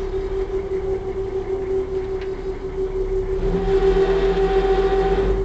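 Small river ferry's engine running with a steady hum. About three and a half seconds in it grows louder, with more noise, for the last two seconds.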